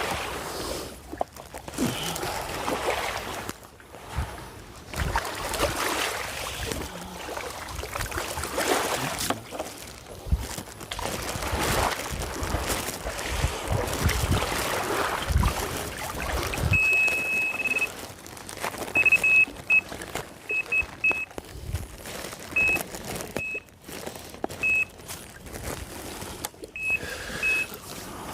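Outdoor wind noise buffeting the microphone, with a run of electronic beeps at one high pitch in the second half: one longer beep, then several short ones.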